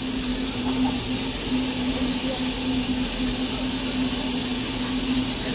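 Steam locomotive blowing off steam: a loud, steady high hiss, with a low steady hum underneath.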